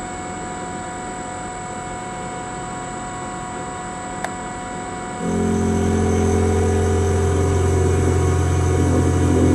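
Milling machine with an end-mill spindle running, a steady motor hum with a whine. There is a single click about four seconds in. About five seconds in a louder, deeper hum joins and holds steady.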